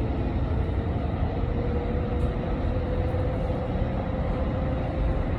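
Driverless automated train heard from inside the car while running between stations: a steady low rumble with a thin motor whine that slowly rises in pitch.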